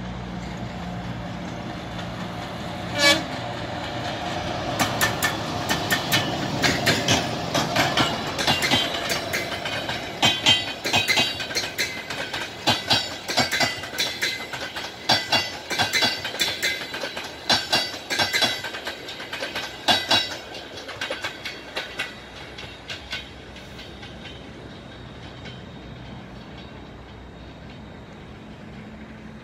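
A ChS4 electric locomotive and its passenger coaches pass close by, with a steady hum at first and one sharp knock about three seconds in. Then comes a long run of rapid clicking as the wheels go over the rail joints, fading after about twenty seconds as the train moves away.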